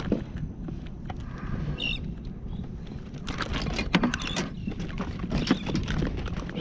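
Wind rumbling on the microphone, with a run of sharp clicks and knocks from about three to five seconds in as a caught fish and gear are handled aboard a plastic kayak.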